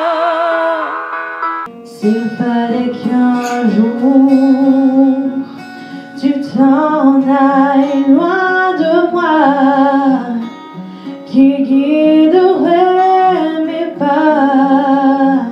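A woman singing a song. About two seconds in, her bare voice cuts to another take where she sings over a strummed acoustic guitar.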